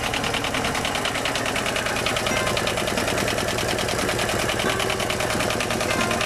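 Universal M2-12 marine diesel engine running steadily with an even, rapid clatter.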